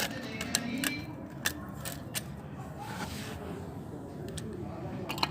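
Scattered sharp metallic clicks and clinks of hand tools and engine parts being handled during a motorcycle top-end teardown, several close together at first and then a few spaced out.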